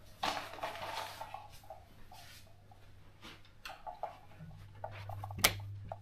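Irregular rustling and clicking handling noises from someone walking with a handheld camera, with a sharp click about five and a half seconds in, over a steady low hum.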